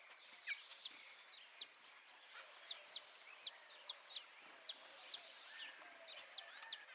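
Faint birdsong: a bird repeating sharp, very high chip notes that drop steeply in pitch, about a dozen at an irregular pace of roughly two a second, over softer chirping of other birds.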